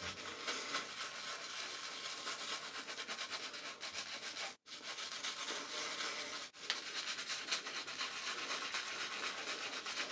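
Small shaving brush swirling soap lather over stubble on the face, a steady brisk scratchy rubbing with two brief breaks in the middle.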